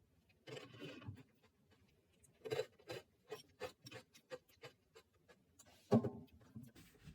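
Handling noises: a series of light clicks and taps with some rubbing, and one heavier knock about six seconds in.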